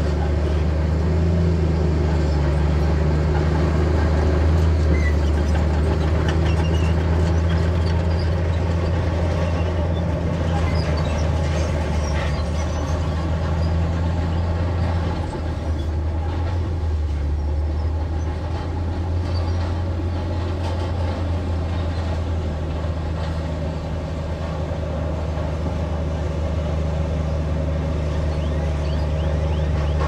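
Bulldozer's diesel engine running steadily as a loud low drone that sags briefly about halfway through and again later, with faint scattered clinks on top.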